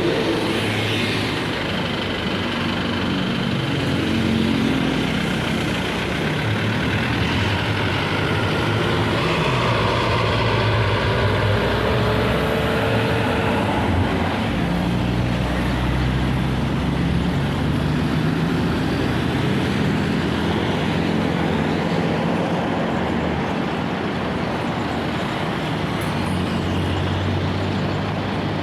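Heavy road traffic going by: large diesel vehicles such as buses running past with engine and tyre noise, the sound swelling a little through the middle and easing off again.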